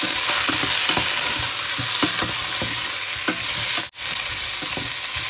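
Chicken pieces and sliced onion sizzling in hot oil in a stainless steel pot while a spatula stirs them, with frequent scrapes and taps of the spatula against the pot. The sound cuts out for a moment about four seconds in.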